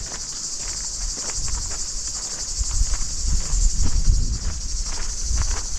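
A steady, high-pitched chorus of insects with a fast even trill. Irregular low thumping and faint rustling sit underneath it.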